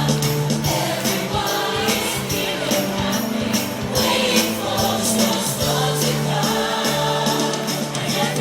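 Upbeat Christmas song played loud, with jingle bells shaking on a steady beat under group singing.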